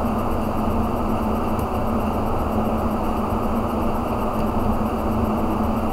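A steady low machine hum with a wash of noise, unchanging throughout.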